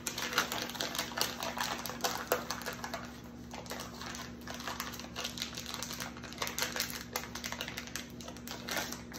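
Crinkling plastic wrapping as a block of air-dry clay is handled and opened to pull out a piece: an irregular run of small crackles throughout.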